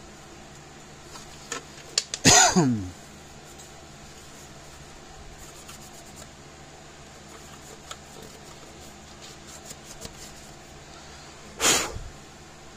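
A person coughs twice: once about two seconds in, with a falling vocal tail, and again near the end as a short burst. In between there are faint clicks and rubbing from a plastic enclosure being handled.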